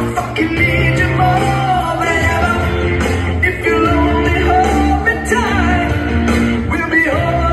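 Rock ballad played loud through a DJ's sound system, with a sung vocal line over a steady bass.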